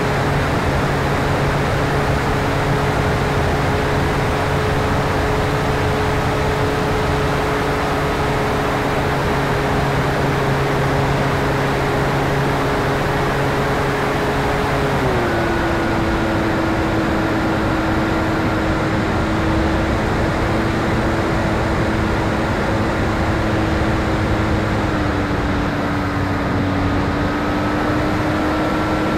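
RC model Air Tractor's motor and propeller running steadily in flight, heard from the plane itself under a heavy rush of wind noise. The steady hum steps down in pitch about halfway through as the motor slows, and dips a little again near the end.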